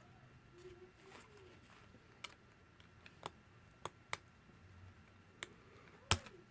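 Small hand tools clicking and tapping against a smartphone's internal parts while the front camera module is being pried loose. About six sharp ticks come at uneven intervals, the loudest near the end.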